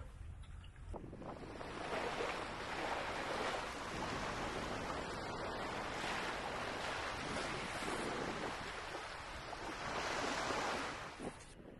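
Sea water rushing and splashing along a sailboat's hull under way, with wind blowing over the microphone. The rush starts about a second in, swells again near the end, then drops away.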